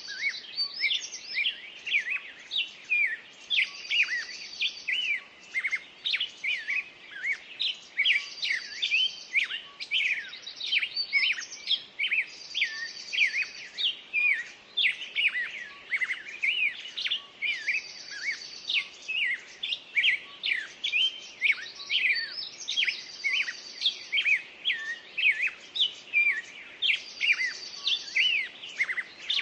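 A dense chorus of songbirds chirping and whistling, with one bird repeating a short high trill every four to five seconds.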